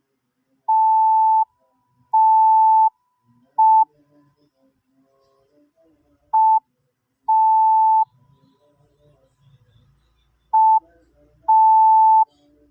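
Morse code sent as steady beeps of one pitch at a slow practice speed: long dashes and short dots with long pauses between letters, keying dash-dash-dot (G), then dot-dash (A), then another dot and dash near the end.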